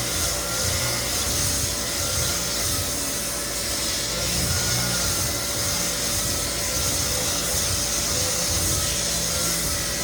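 Lagler Flip floor sander running steadily, its abrasive grinding across cupped white oak flooring to level it, a continuous rasping noise with a steady motor tone.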